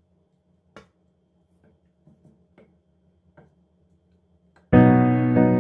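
About six light clicks of a wooden spatula knocking against a glass baking dish as cooked ground meat is spread over it, scattered over about three seconds. Near the end, piano music starts suddenly and is much louder.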